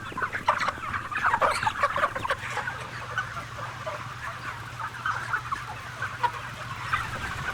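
A shed full of broiler chickens: many birds clucking and chirping at once over one another, with a steady low hum underneath.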